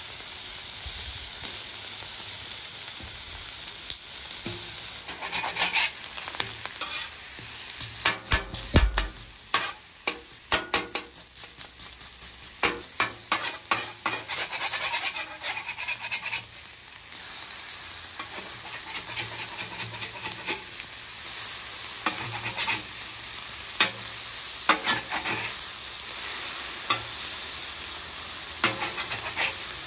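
Chicken breasts and chorizo sizzling on a Blackstone steel flat-top griddle, with metal spatulas scraping, chopping and tapping on the griddle plate in runs of sharp clicks, thickest in the first half and again near the end.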